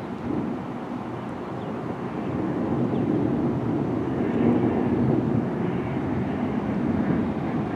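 Rolling thunder: a low rumble that swells about two seconds in, peaks around the middle and slowly eases off.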